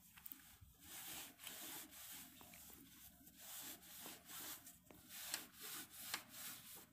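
Dry cloth rubbing across the top of an inverter battery in faint, repeated wiping strokes, dusting it off.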